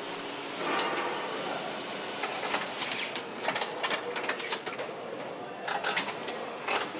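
Car factory machinery: a steady hiss with many irregular sharp clicks and clanks, some in quick clusters.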